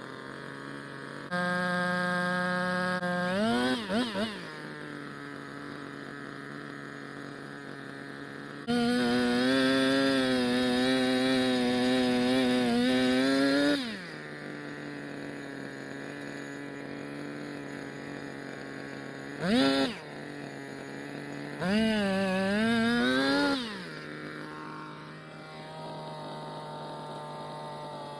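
Petrol earth auger's engine idling and revved up several times, the longest for about five seconds with its pitch wavering as the bit bores into the ground, plus shorter revs and a brief blip, dropping back to idle between.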